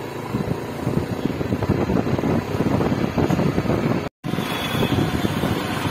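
Rumble and road noise of a moving vehicle with wind buffeting the microphone, cut off briefly about four seconds in before resuming.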